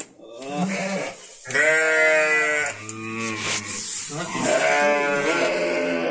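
Sönmez sheep, ewes and lambs, bleating: four or five calls one after another, most high, one deeper about three seconds in.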